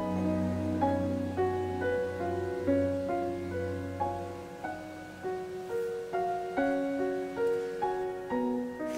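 Soft piano background music: a slow melody of single notes over a held low note that drops out about halfway through.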